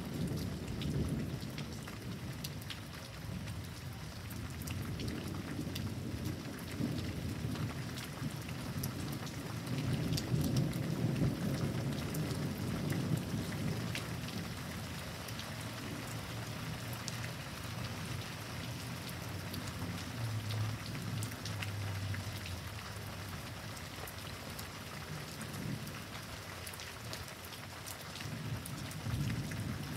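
Thunderstorm: steady rain with many small drop ticks, and thunder rumbling low several times, at the start, around a third of the way in and again near the end.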